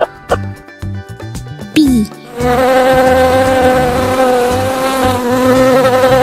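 Bee buzzing: a steady, loud, even drone that starts about two seconds in and holds on, after a short stretch of light background music.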